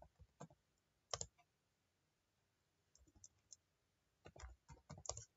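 Faint computer keyboard keystrokes: a few single key taps, then a quicker run of typing near the end.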